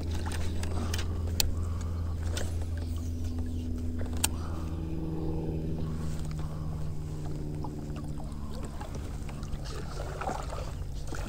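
A boat motor humming steadily on the water, its pitch drifting a little partway through, with a few sharp clicks in the first few seconds.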